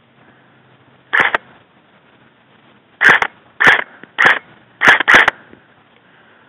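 Airsoft guns firing: six separate sharp shots, one about a second in and five more in quick succession over the next two and a half seconds, the last two close together.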